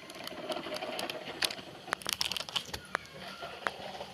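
Irregular light clicks and taps, a few each second, over a low background hum.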